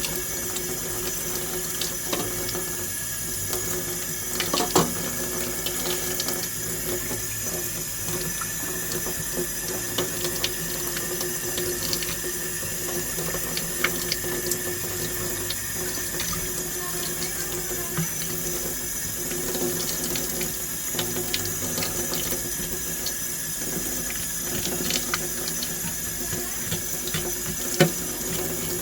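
Tap water running steadily into a sink, with a few light knocks and clicks scattered through it.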